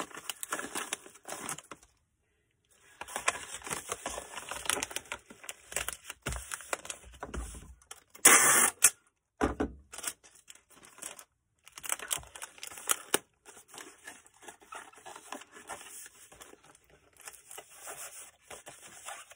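Packing materials being handled: repeated rustling and crinkling, with a brief loud tearing sound about eight seconds in.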